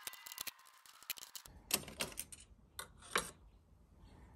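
Light metallic clicks and taps from a screwdriver and screws working a small flat metal hold-down plate loose on an aluminium frame: a quick run of clicks in the first second and a half, then a few separate clicks.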